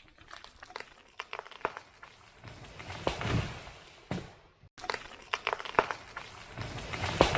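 A felled tree going over: a run of sharp cracks and snaps from the breaking wood, swelling into two crashes with heavy low thuds, about three seconds in and again near the end.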